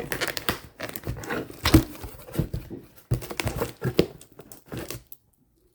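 Hands handling plastic fire alarm devices and packaging, with irregular clicks, knocks and crinkling that stop about five seconds in.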